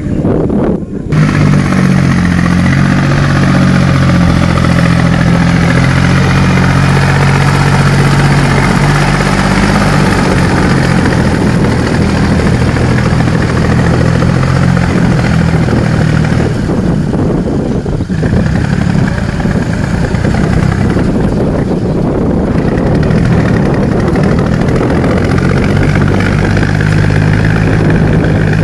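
Tractor excavator's diesel engine running steadily, with a brief dip in its note about a second in.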